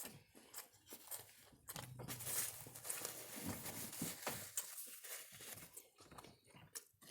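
Close-up mouth sounds of crunching and chewing kettle chips, with crinkling of food packaging, loudest in a dense crackly stretch from about two to five seconds in.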